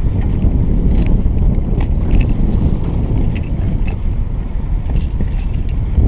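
Wind buffeting the microphone as a steady low rumble, with small metallic clicks and jingles from a lipless rattle-bait lure and its treble hooks being worked loose by hand.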